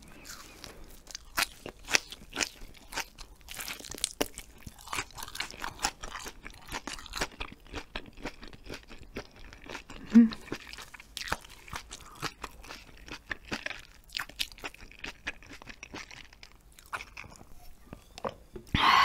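Chewing a mouthful of hagfish skin jelly with seasoned chives: a steady run of short, crisp mouth clicks. One brief louder mouth sound comes about ten seconds in.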